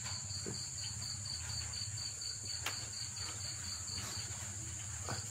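Crickets chirping: a fast, even run of high chirps, about five a second, that stops about four seconds in, over a steady high-pitched hum.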